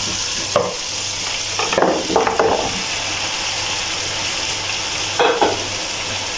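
Beef pieces frying in hot onion-tomato masala in a pot, a steady sizzle. Three short louder clatters come as the meat tips in and is moved with a wooden spatula, about half a second in, around two seconds in, and past five seconds.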